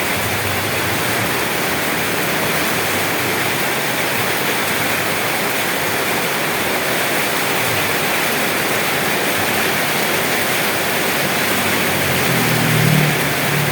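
Heavy rain falling steadily, a dense, even hiss with no break. A brief low rumble rises under it near the end.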